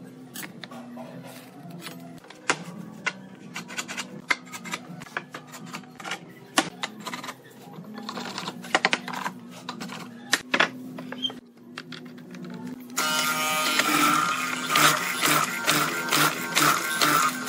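Irregular sharp clicks and taps over a steady low hum, then about 13 seconds in a loud machine suddenly starts up, running with a steady whine and a rapid rattle.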